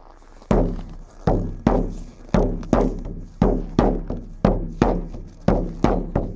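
Sami frame drum beaten with a hand-held beater in a steady rhythm, starting about half a second in and settling at roughly three strokes a second; each stroke is a deep thud with a short ring that dies away.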